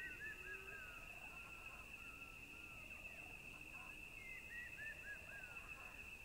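Faint outdoor nature ambience: a steady high insect drone with short bird chirps, a quick run of about five chirps about four to five seconds in.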